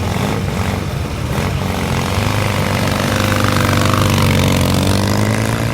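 Vintage motorcycle engine running and being revved, its pitch climbing and the sound growing to its loudest about four seconds in, then easing a little.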